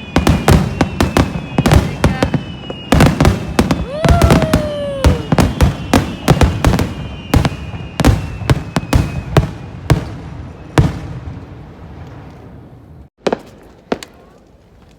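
A festival fireworks finale: a rapid barrage of shell bursts, many bangs in quick succession, with whistling tones. One whistle falls in pitch about four seconds in. The bangs thin out and stop after about eleven seconds.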